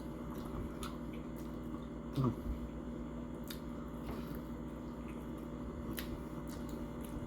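Close-miked chewing of crispy mini tacos: wet mouth sounds and small scattered crunches and clicks, with a brief low vocal sound about two seconds in, over a steady electrical hum.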